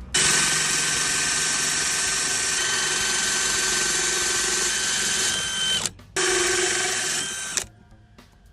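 A loud motor whirring with a steady whine over it, in two runs: it stops for a moment about six seconds in, starts again and cuts off a second and a half later.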